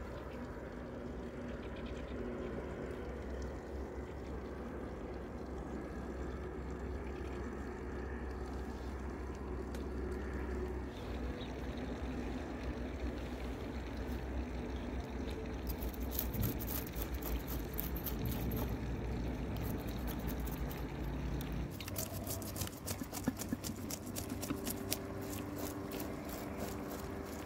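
Kitchen knife scraping the scales off a small whole fish on a wooden board: rapid repeated scraping strokes in two bouts, a short one about halfway through and a longer one near the end, over a low steady hum.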